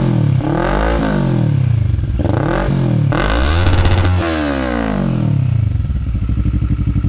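Kawasaki ER-6n's parallel-twin engine, breathing through a TRS aftermarket end can, revved in a run of quick throttle blips, one held a little longer, then dropping back to a pulsing idle near the end.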